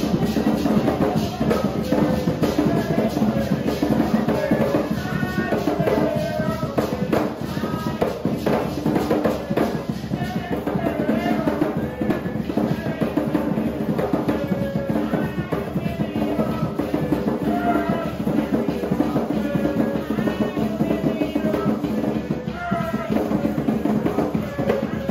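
Garifuna hand drums played in a fast, continuous rhythm for a dance performance, with voices singing over the drumming.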